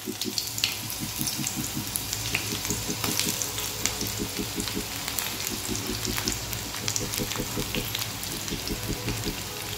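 Sliced onions sizzling in hot ghee and oil in a pan, with a steady crackle of small pops over a low hum.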